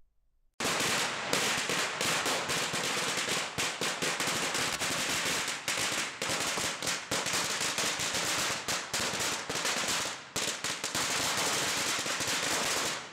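A long hanging string of red firecrackers going off in a rapid, continuous rattle of sharp bangs. It starts about half a second in, with a brief lull a little after ten seconds.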